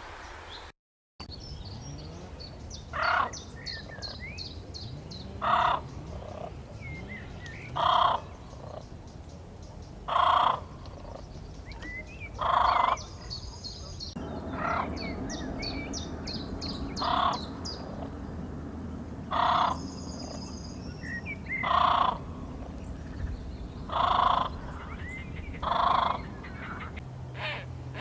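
A bird giving a short call over and over, about every two and a half seconds, while smaller birds chirp in quick high runs between the calls.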